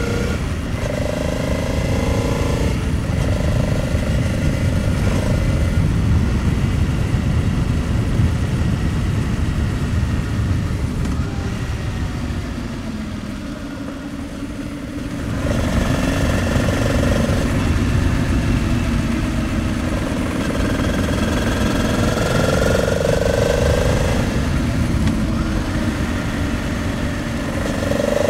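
Honda Transalp 700's V-twin engine running on the move, its pitch shifting with throttle and gear changes, over a steady low rush of wind and road noise. About halfway through it eases off and drops in level, then picks up again a few seconds later.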